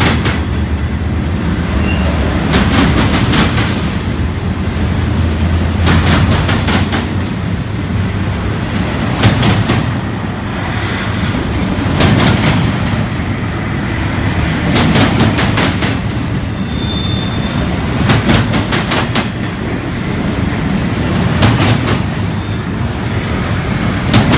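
Union Pacific double-stack container train rolling past at close range: a steady low rumble with clusters of wheel clicks over the rails recurring about every three seconds as each well car's wheel sets pass.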